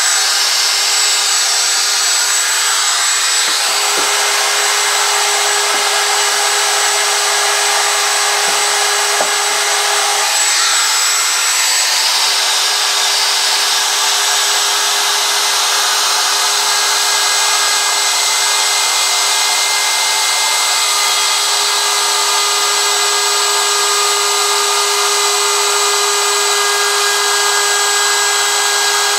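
DeWalt DW618 router running at speed and cutting wood, guided freehand along a sign board's edge: a really loud, steady whine over the hiss of the cut.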